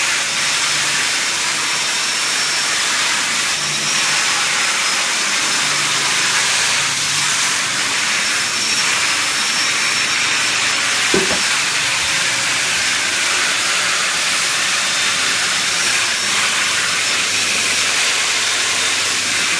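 Festool dust extractor and long-reach ceiling sander running together as popcorn texture is sanded off a ceiling: a steady loud hiss of suction airflow with a faint high whine. A brief knock about eleven seconds in.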